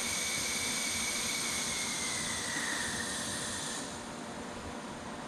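Compressed air hissing steadily in a wastegate bench-test air line, with a faint high whistle that sags slightly in pitch. About four seconds in the hiss drops to a quieter level as the air pressure is turned down.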